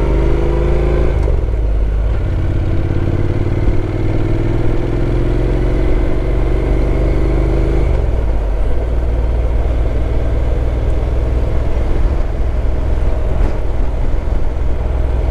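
Honda NC750X parallel-twin engine heard from on the bike as it accelerates. Its pitch rises, drops at a gear change about a second in, and climbs again in the next gear until about eight seconds in. It then settles into a steady drone at cruising speed.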